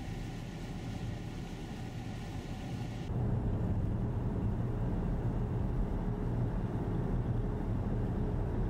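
A car driving on a snow-covered highway, heard from the moving vehicle: a steady rumble of engine and tyres on snow. About three seconds in it changes abruptly to a louder, deeper rumble with less hiss.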